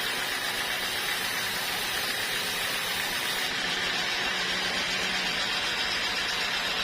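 Sawmill machinery running steadily, a continuous hissing mechanical noise with no pauses.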